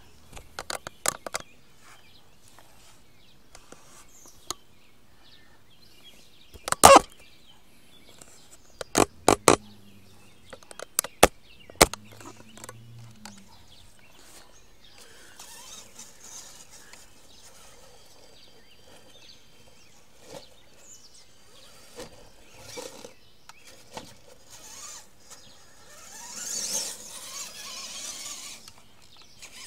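Traxxas E-Maxx 3906 electric RC monster truck driving on grass: a run of sharp knocks and clatter, loudest about seven, nine and eleven seconds in, then a faint hiss that swells near the end as it comes closer.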